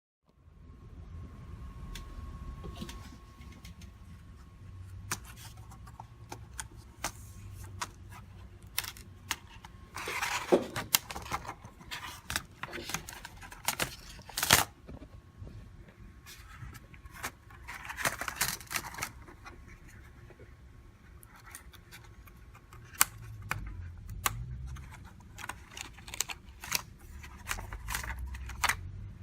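Hands working on a Dell Vostro 1520 laptop's keyboard: irregular clicks, snaps and short scrapes of plastic and small metal parts, with bumps of handling underneath.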